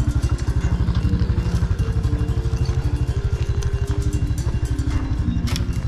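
Motorcycle engine running with a steady, rapid beat of firing strokes, with light clatter over it.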